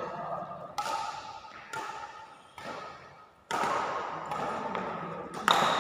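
Badminton rackets striking a shuttlecock in a rally: about five sharp hits roughly a second apart, each ringing briefly in the large hall, the last the loudest.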